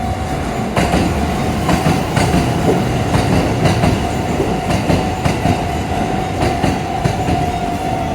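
Shin-Keisei Line electric train running by, its wheels clacking over rail joints about once or twice a second over a steady rumble, with a constant high whine underneath.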